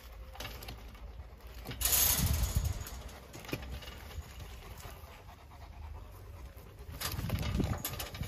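Black panther and dogs facing off through a chain-link fence: two short bursts of animal noise, one about two seconds in and another near the end.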